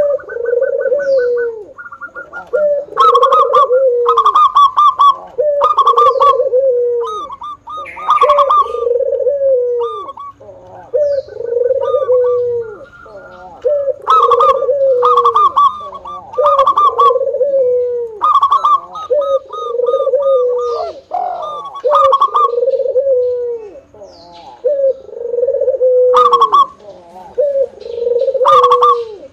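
Zebra dove (perkutut) cooing its song over and over, each phrase a quick run of short notes ending in a longer rolling coo, about one phrase every two seconds.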